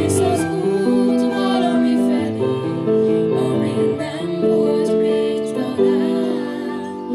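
A young woman and a young man singing a song into handheld microphones, in long held notes with vibrato, over piano accompaniment.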